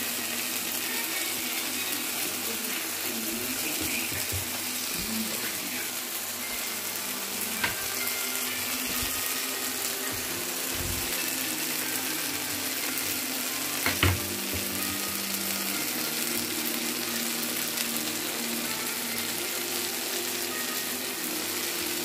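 Food sizzling steadily in a frying pan, with a light knock about eight seconds in and a louder one about fourteen seconds in.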